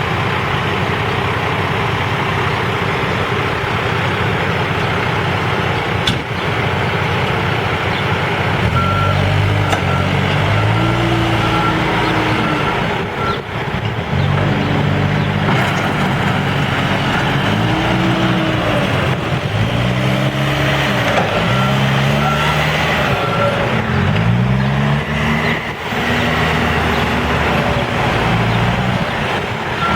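Case 590 Super N backhoe loader's diesel engine working, its pitch rising and falling again and again as it revs under hydraulic load. A backup alarm beeps in two spells, starting about a third of the way in and again past the middle.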